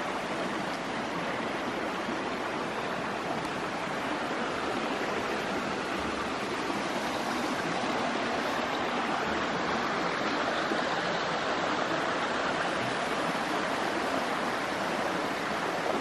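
Shallow creek water running over and between rocks: a steady rush that swells slightly a little past the middle.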